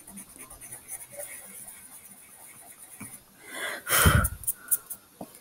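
Faint scratching of a pencil on paper, then about three and a half seconds in a loud, breathy puff of air, followed by a few light clicks.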